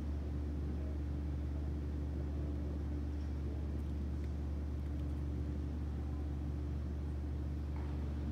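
Steady low hum of a gymnasium's machinery, with a constant faint tone above it and no change in level.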